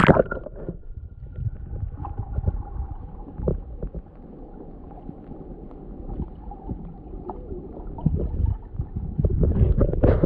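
Kayak paddling on a creek: uneven splashes and water knocking against the hull, with wind rumbling on the microphone. The splashing gets busier near the end.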